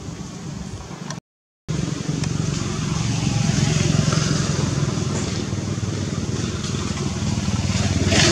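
A motor engine running steadily, with a brief gap of silence about a second in and louder after it.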